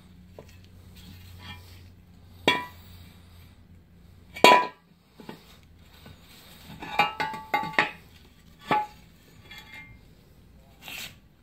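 Metal clanks and clinks as the bedplate of a Kia 1.6L GDI engine is worked loose and lifted off the upside-down block. The loudest knock comes about four and a half seconds in, followed by a quick run of rattling clinks around seven to eight seconds and one more knock shortly after.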